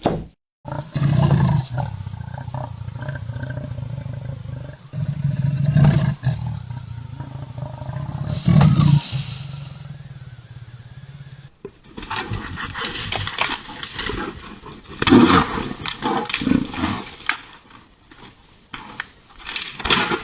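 An animal roaring: deep, loud calls about a second, six seconds and nine seconds in. About a third of the way through this cuts off, and a rougher, noisier sound follows.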